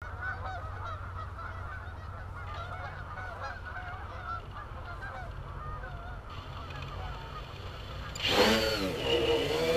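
A flock of geese honking, many overlapping calls over a low steady rumble. About eight seconds in, a much louder sound cuts in, with a pitch that wavers up and down.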